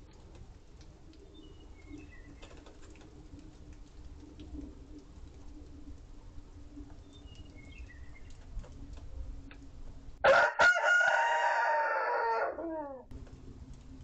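A rooster crows once, loud, about ten seconds in, lasting about two and a half seconds, with its pitch dropping at the end. Before it there is only a faint low steady hum and two faint falling bird chirps.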